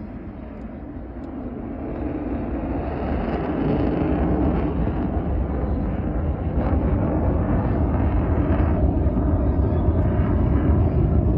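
Aircraft engine rumble growing steadily louder as a display aircraft approaches.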